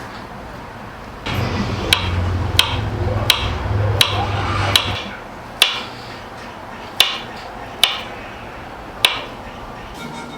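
A series of sharp taps or clicks, about nine of them, each with a short ringing tail, spaced roughly a second apart. A low hum sounds under the first half.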